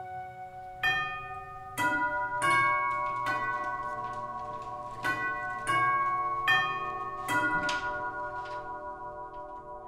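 Tubular door chime ringing an eight-note melody in two phrases of four, each note struck and left ringing, the tones fading out near the end: the doorbell announcing a visitor at the front door.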